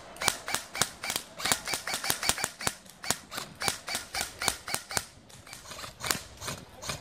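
Airsoft guns firing: a rapid, uneven string of sharp shots, about five or six a second, thinning out after about five seconds to a few scattered shots.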